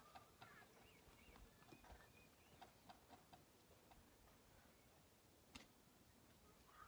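Near silence: faint background with scattered small ticks and short chirps, and one slightly sharper click about five and a half seconds in.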